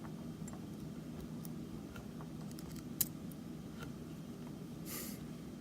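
Small metal lock pins and the lock's core being handled, giving faint scattered metallic clicks and one sharper click about three seconds in. A steady low hum runs underneath, and there is a brief hiss near the end.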